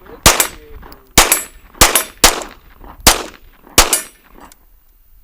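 Six 9mm shots from a Kriss Vector SDP pistol, fired semi-automatically at an uneven pace over about three and a half seconds, each with a short ringing tail.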